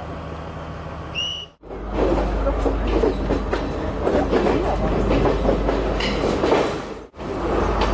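Udarata Menike passenger train at a station: a steady low rumble with rattling and clatter from the carriages, and a short high squeal about a second in. The sound cuts out briefly twice and is louder after the first break.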